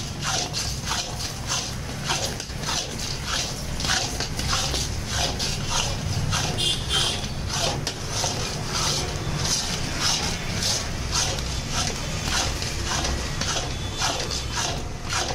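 A flat metal spatula scraping and stirring thick cashew-sugar paste around a metal kadai, rough strokes a few times a second at uneven spacing, over a steady low hum. The paste is being cooked down to a soft kaju katli dough.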